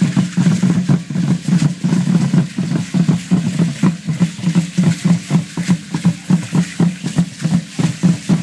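Aztec dance drumming: tall huehuetl drums beating a fast, even rhythm of about three strokes a second, with sharp clicks and rattles over the beat.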